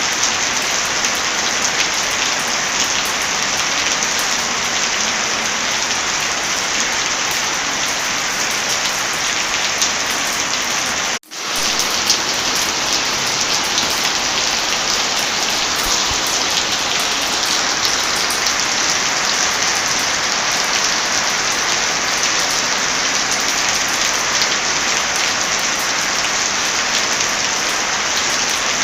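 Heavy rain falling steadily. About eleven seconds in, the sound cuts out briefly and fades back in.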